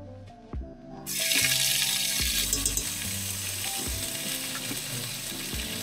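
Thai green curry paste and garlic hitting hot oil in a pan, bursting into a loud, steady sizzle about a second in. Background music plays throughout.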